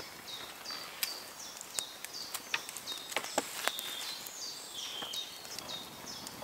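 A songbird singing a run of quick, high chirping notes in woodland, over a crackling wood campfire that gives scattered sharp snaps.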